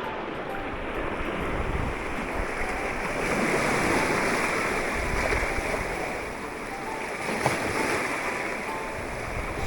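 Steady rushing of wind and sea water on an open fishing boat, with wind buffeting the microphone; the noise swells and eases slightly.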